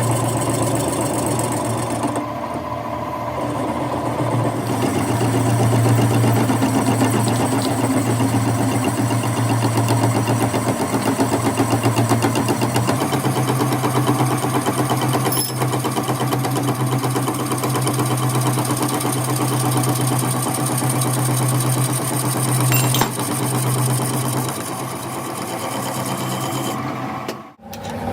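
A shop machine running steadily with a fast, even buzzing rhythm and a strong low hum, cut off briefly near the end.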